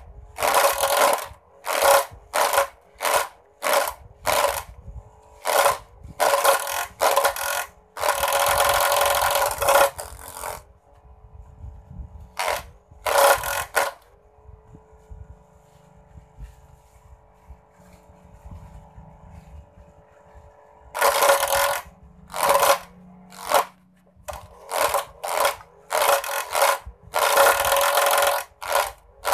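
Homemade mini grass chopper driven by a salvaged toy-car electric motor, cutting grass fed into it in a rapid series of short, loud bursts. About ten seconds in the cutting stops for roughly ten seconds, leaving only the motor's steady whine, then the chopping bursts start again.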